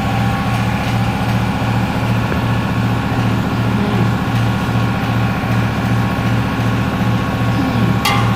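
An engine or motor running steadily with a regular low throb of about two to three beats a second. There is a sharp metallic click near the end.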